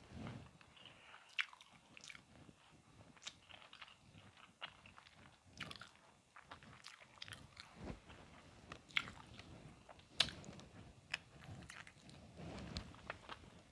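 A person chewing and smacking her lips over a mouthful of smoked sausage, with many short wet mouth clicks at irregular intervals.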